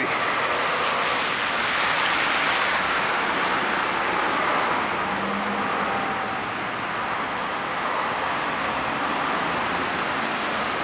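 Steady city traffic noise as a Kenworth semi tanker truck and cars drive past: engine and tyre noise from the passing vehicles.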